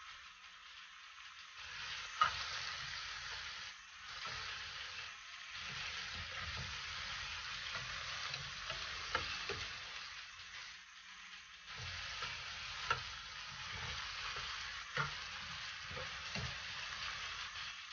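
Sliced onions sizzling in oil in a non-stick frying pan, turned over with tongs that scrape and tap against the pan every few seconds, the sharpest tap about two seconds in.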